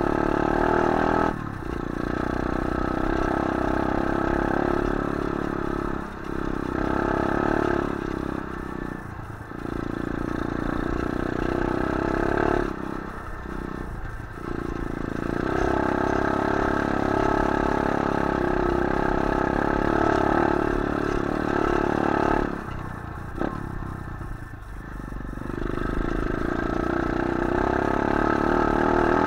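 125cc pit bike engine running under throttle while riding, revving up and easing off again and again; the note drops several times, longest about three-quarters of the way through, before picking back up.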